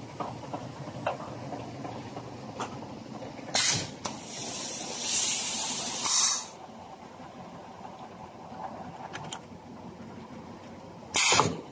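Compressed air venting from the pneumatic cylinders of a filter-media pleating and round-cutting machine. There is a short sharp hiss about three and a half seconds in, a longer hiss of about two seconds soon after, and another short hiss near the end, over the steady machine running noise and light clicks.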